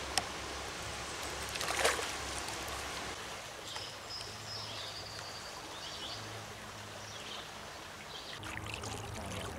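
Steady rush of a riffled trout stream, with a sharp splash about two seconds in.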